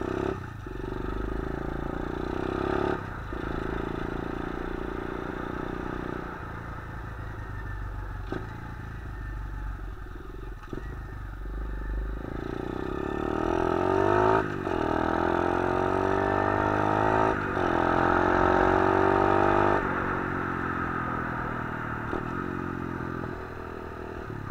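A 125cc pit bike engine running under way from the rider's seat. Its pitch climbs and drops back sharply about 3 s in and again three times near the middle, and it is louder through the middle stretch.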